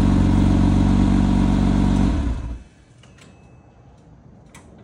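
Porsche Boxster's flat-six engine idling steadily through its centre exhaust, then switched off about two seconds in and running down to a stop. A few faint clicks follow.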